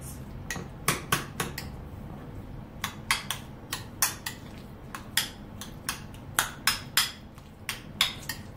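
Metal spoon clinking and scraping against a ceramic bowl while stirring guacamole: sharp clinks at an uneven pace, about two a second.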